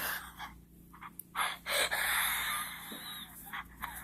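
A person's short breathy gasps and exhalations through the nose and mouth.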